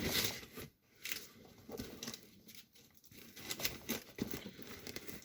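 A cardboard shipping box being handled and its packaging opened: irregular rustling, scraping and tearing noises with a few light knocks.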